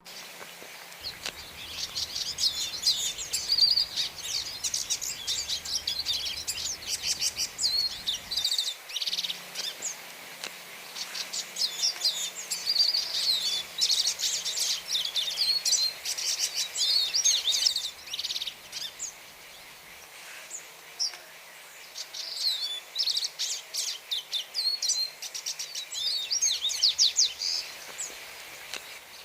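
Hooded siskin singing: long runs of rapid, twittering warbled song, broken by a few short pauses.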